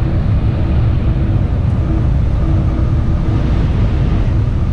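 Shinkansen bullet train running at speed, heard from inside the passenger cabin: a steady, loud low rumble of wheels and running noise.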